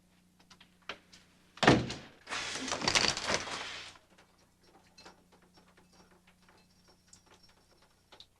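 A door slams shut about a second and a half in. A burst of rushing noise lasting nearly two seconds follows, then only faint small clicks.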